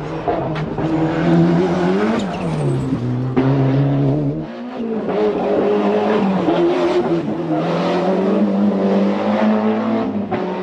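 Ford Escort RS Cosworth rally car's 2.0-litre turbocharged four-cylinder engine under hard acceleration, its pitch rising and falling with throttle and gear changes. The sound changes abruptly about four and a half seconds in.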